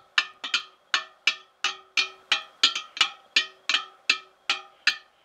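The wire spokes of a Harley-Davidson rear wheel struck one after another, about three a second, each giving a short ring at much the same note. The matching notes are the check that the spokes are evenly tensioned after broken spokes were replaced and the wheel re-trued.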